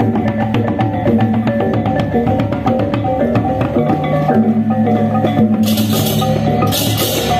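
Balinese gamelan music: fast, dense percussion with quickly changing pitched metal notes over drums, with two long crashes in the second half.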